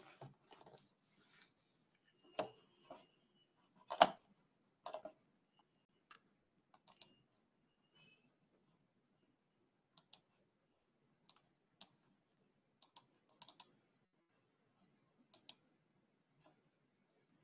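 Scattered light clicks and knocks from a computer being handled and used. A few sharper knocks come in the first five seconds, the loudest about four seconds in, then single soft clicks every second or two.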